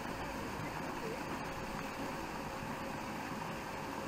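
Steady background noise: an even hiss and low rumble with a faint steady hum, and no distinct sound standing out.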